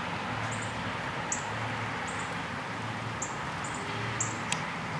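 Parent songbirds giving short, sharp, high-pitched chip calls, about one or two a second, alarm calls at an intruder near their nest, over a steady outdoor hiss. One sharp click near the end.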